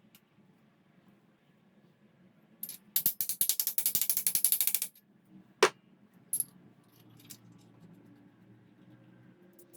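A hand ratchet wrench clicking rapidly for about two seconds as a bolt is wound, followed by a couple of single sharp metallic clicks.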